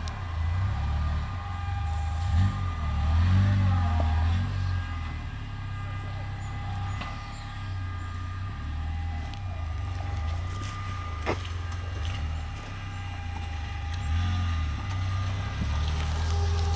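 Engine of a 6x6 all-terrain vehicle on low-pressure tyres running as it crawls over forest ground, its note rising and falling with the throttle over a steady whine. A single sharp crack about eleven seconds in.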